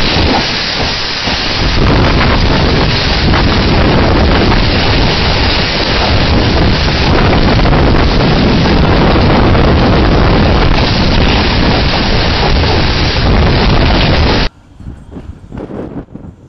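Tornado wind tearing through a school hallway, a very loud, steady rush of noise heard through a security camera's microphone. It cuts off suddenly near the end, leaving quieter, uneven sounds.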